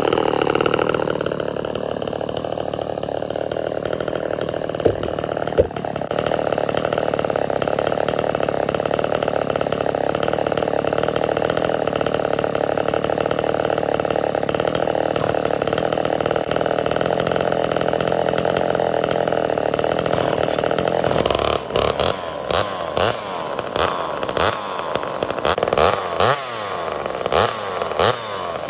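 Homelite two-stroke chainsaw running: its revs fall away in the first second and it then idles steadily, with two sharp clicks about five seconds in. From about three-quarters of the way through, the throttle is blipped again and again, the engine revving up and dropping back several times.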